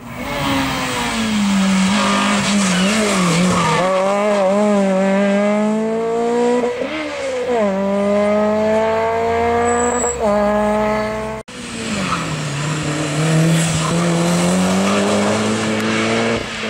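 Slalom competition cars driven flat out: a Citroën Saxo VTS engine revs up through the gears, its pitch climbing and dropping back at each upshift several times. After an abrupt cut about eleven seconds in, a Mitsubishi Lancer Evo's engine climbs again.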